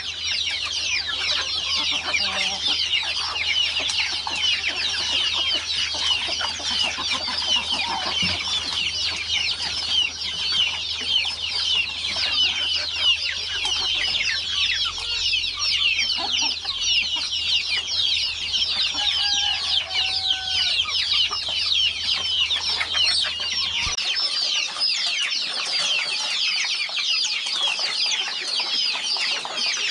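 A flock of chickens calling, many high, short calls overlapping without pause.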